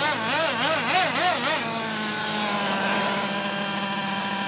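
Nitro RC truck's 3.3 glow engine revving up and down in quick repeated throttle blips, then settling into a steady even note about a second and a half in.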